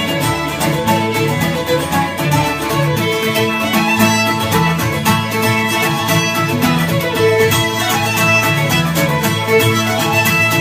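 Violin and Irish bouzouki playing a Galician pasacorredoiras tune: the fiddle carries a bowed melody over steady, rhythmic bouzouki strumming.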